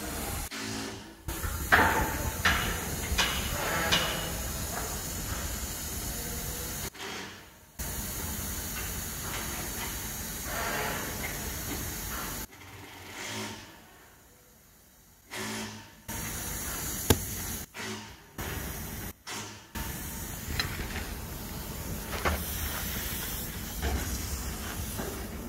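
Compressed air hissing steadily through the test hose and fittings on a Framo cargo pump during a pressure leak test. It cuts out abruptly several times, once for about three seconds midway. A few knocks sound in the first seconds.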